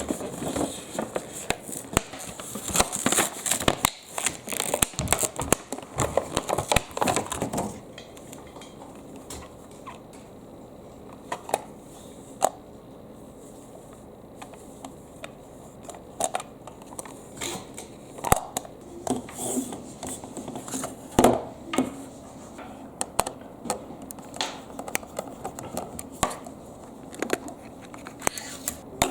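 Glass marbles rolling and clacking down a wooden zigzag marble run: a dense clatter of clicks for the first eight seconds or so, then scattered single clicks.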